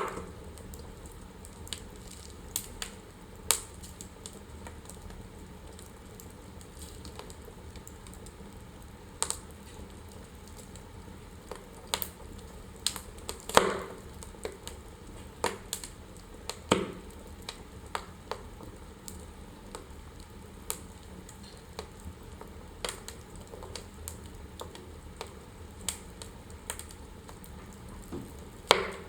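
Wood fire burning in a fireplace: a steady low hiss with irregular sharp crackles and pops, the loudest about halfway through and again near the end.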